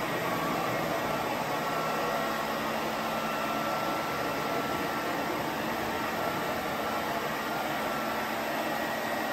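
CYBERDYNE CL02 cleaning robot running as it drives across a hard floor: a steady whirring hiss from its motors and suction, with a faint thin whine through the middle.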